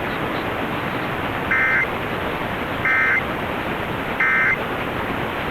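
Emergency Alert System end-of-message (EOM) data signal: three short bursts of digital data tones, a little over a second apart. They mark the end of the alert message. Steady AM radio hiss runs underneath.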